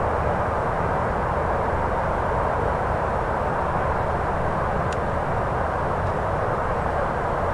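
Steady outdoor background noise: an even rush with a low hum beneath it, unchanging throughout, with one faint tick about five seconds in.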